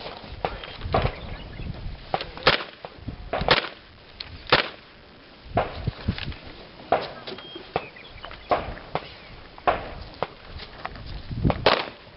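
Handgun shots fired in a steady string, about one a second, roughly ten sharp reports with some louder than others.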